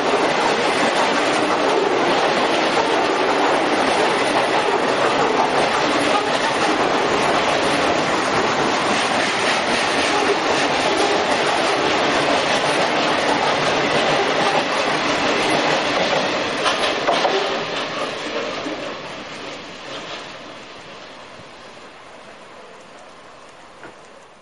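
Freight train of EWS bogie coal hopper wagons rolling past, the wheels clattering in a steady clickety-clack. The sound fades away steadily from about two-thirds of the way through as the last wagon moves off.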